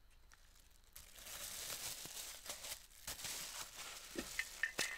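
Thin clear plastic bag crinkling as it is handled, with scattered small clicks.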